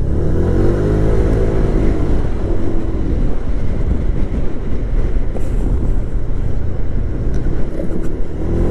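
Motor scooter engine pulling away: its pitch rises over the first second and a half, then settles as the scooter cruises, over a steady rumble of wind and road noise. The engine picks up again near the end.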